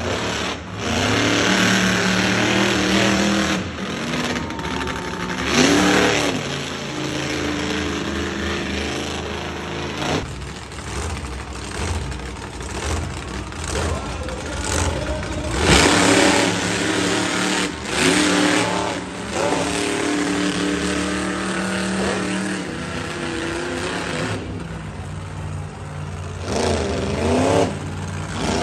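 Monster truck engines running and revving, the pitch climbing and dropping back several times.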